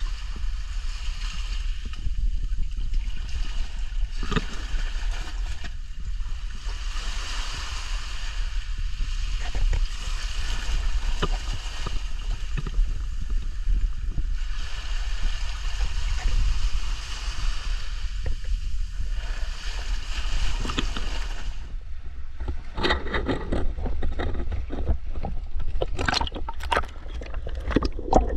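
Gentle sea waves washing in and out over a GoPro in its waterproof housing at the water's edge, the hiss swelling and ebbing every few seconds over a steady low rumble of water against the housing. About three quarters of the way through the camera goes under: the sound turns muffled and filled with crackling clicks of water and sand moving around the housing.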